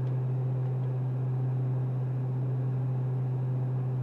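Steady cockpit drone of a Beechcraft King Air 200's twin Pratt & Whitney PT6A turboprops in flight: a deep, constant propeller hum over an even rushing noise, unchanging throughout.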